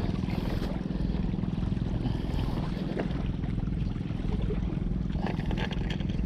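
Steady wash of wind and water against breakwater rocks, with a low hum beneath and a few faint taps near the middle and toward the end as a fishing rod is wedged between the boulders.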